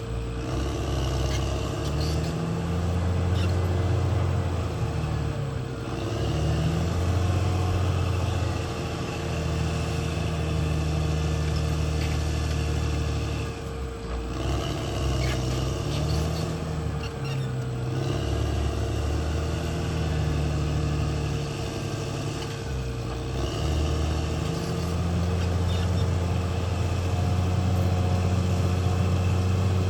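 Caterpillar D6R XL bulldozer's diesel engine running under changing load, its note rising and falling repeatedly as the machine pushes and eases off, with a steady whine throughout.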